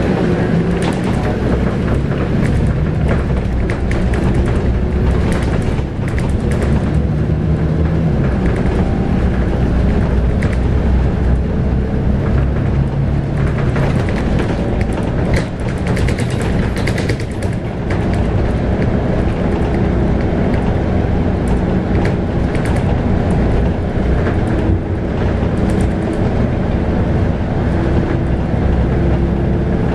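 A Scania K280UB bus's 9.3-litre five-cylinder diesel engine and ZF Ecomat six-speed automatic gearbox running under way, heard from inside the bus. The engine note rises and falls, over road noise and scattered rattles.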